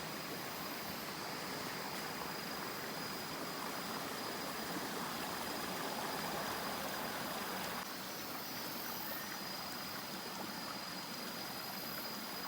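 Steady rush of flowing water from a forest stream, an even hiss with a faint thin high tone running over it; the level steps down slightly about eight seconds in.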